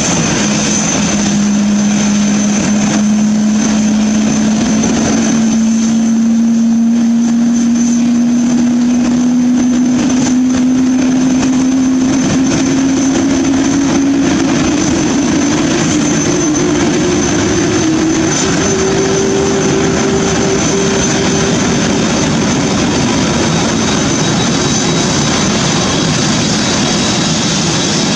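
Airbus A380 jet engines running loud, with a steady whine that climbs slowly in pitch over about twenty seconds over a constant roar, as the engines' speed rises.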